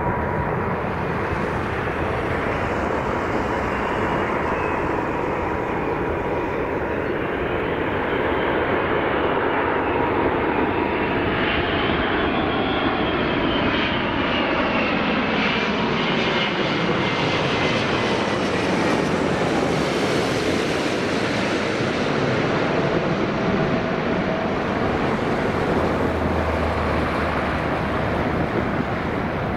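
Airbus A380 with four Engine Alliance GP7200 turbofans on final approach, passing low overhead with a steady engine noise. Whining engine tones slide down in pitch about halfway through as it goes by.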